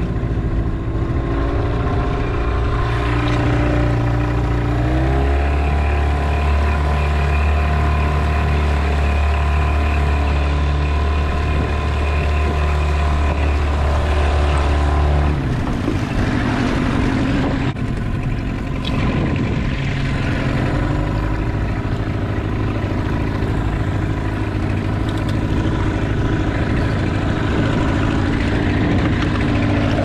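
Outboard motor on a small aluminium tinny running at trolling speed. Its note steps up about five seconds in, holds steady, and drops back to a lower note about halfway through.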